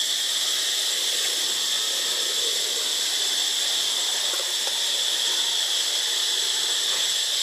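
Steady, high-pitched insect chorus from the surrounding trees, an even unbroken drone with no pauses.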